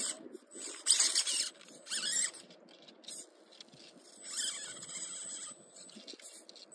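RC rock crawler's electric drivetrain whining in four or five short high-pitched bursts as it is throttled up a steep rock face.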